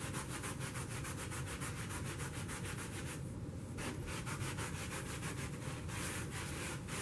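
Stiff-bristled hand brush scrubbed rapidly back and forth over carpet, working baking soda test dirt down into the pile: a quick, even, rhythmic scratching, with a brief pause a little after three seconds in.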